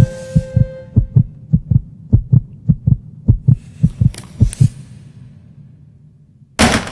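Heartbeat sound effect: low, even thumps about three a second that grow fainter and stop after about five seconds, under a held music chord that dies away about a second in. Near the end a short, loud burst of noise cuts in.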